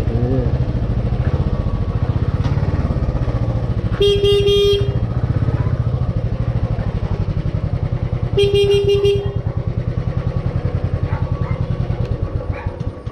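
Motorcycle engine idling with a steady low pulse while its horn is sounded twice, each blast a bit under a second, about four seconds apart. The engine cuts off at the very end.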